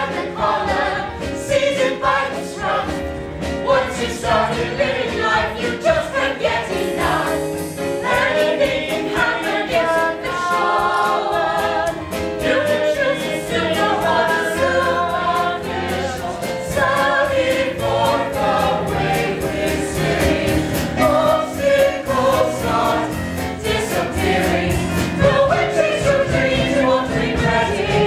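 Stage-musical cast singing together over an instrumental accompaniment with a steady beat, the full ensemble joining in near the end.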